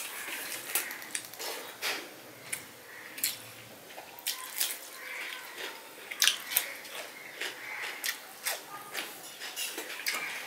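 Close-up eating sounds of a person eating rice and curry by hand: wet chewing and lip smacking, with fingers working rice on a steel plate. A string of sharp clicks and smacks, the loudest a little after six seconds in.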